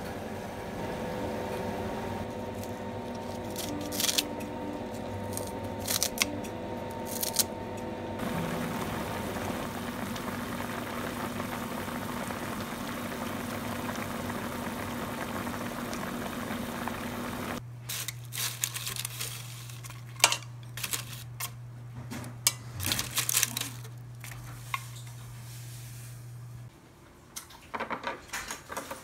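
Pot of soup boiling on the stove under a steady hum, with a few clicks, then a metal spoon clinking and scraping in a frying pan of fried rice, as a series of sharp clicks and knocks over a low hum.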